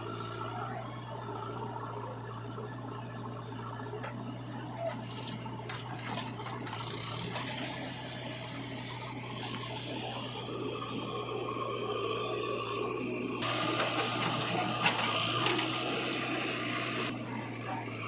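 Heavy-machinery diesel engine running steadily, with a louder rushing noise from about halfway through until near the end.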